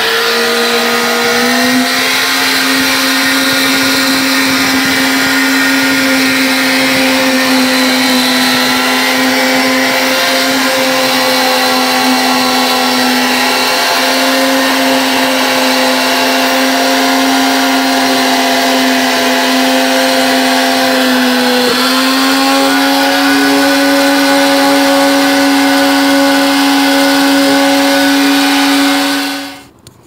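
Small wet/dry shop vac running steadily, sucking leftover water and mineral scale out of an ice machine's bin after an acid wash. Its motor whine rises as it spins up at the start, drops briefly a little past two-thirds of the way through, then cuts off near the end.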